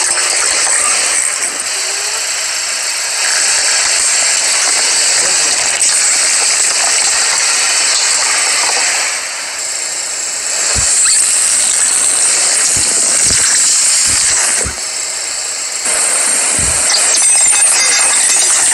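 A car tyre rolling slowly over rows of small objects (coloured glass light bulbs, squishy rubber toys, ceramic plates) and crushing them, with crunching and cracking throughout. Several low thumps come in the second half.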